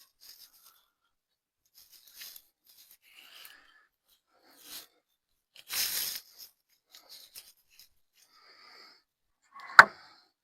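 Lumber being handled on a bench: scattered light rustles and clicks, a short scraping rush about six seconds in, and one sharp knock near the end.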